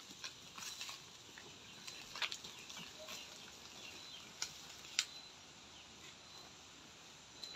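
Faint rustling of leaves and branches with a few sharp snaps and clicks, from a person climbing in a lansones tree and picking the fruit.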